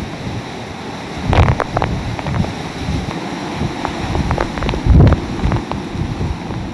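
Hurricane-force wind rushing and buffeting the microphone in gusts, with the strongest gusts about a second and a half in and again about five seconds in. Scattered sharp ticks run through it, with the hiss of heavy rain.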